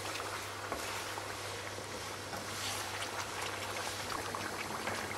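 Chicken pieces frying on high heat in oil and ghee in a deep pan: a steady sizzle with scattered crackles.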